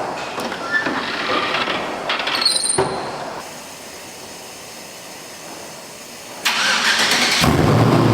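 A fuel-injected LS V8 is cold-started under a Holley Terminator X tune with extra startup fuel. The starter cranks briefly about six and a half seconds in, and the engine catches quickly and keeps running. A few small clicks come first.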